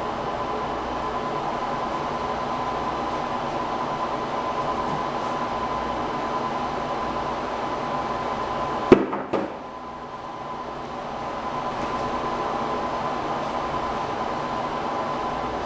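A tablet in a protective hard case strikes the floor after a one-meter drop: one sharp smack about halfway through, with a smaller bounce knock just after. Behind it runs a steady mechanical hum with a faint high tone.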